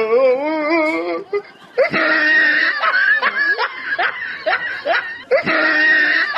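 Loud laughter. A high, wavering laugh lasts about a second, then a longer burst of cackling laughter follows and starts over almost identically just past five seconds in, like a looped laugh clip.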